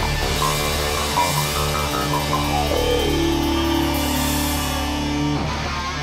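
Rock music: sustained guitar notes over a steady low bass, with a tone sliding down in pitch about halfway through and then holding.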